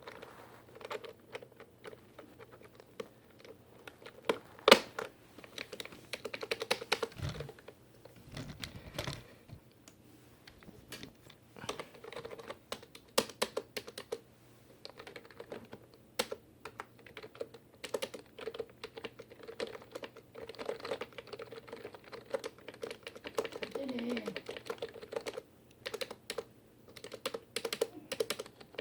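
Keys of a TG Sambo TG-K7000 gaming keyboard being typed on in irregular runs of clicks, with one sharper, louder click about five seconds in and a few low thumps a few seconds later.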